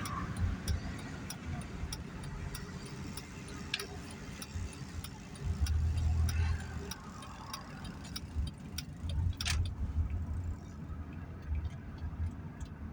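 Car cabin: low engine and road rumble, with a turn signal ticking steadily, a few clicks a second.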